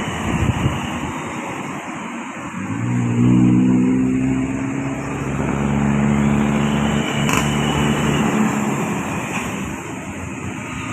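Large bus passing close by with its engine running, a steady low drone that comes in about three seconds in and fades near the end, over road and traffic noise.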